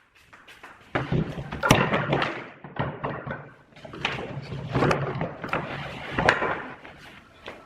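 Wooden pieces knocking and clattering in an irregular run of sharp knocks, with rustling handling noise between them.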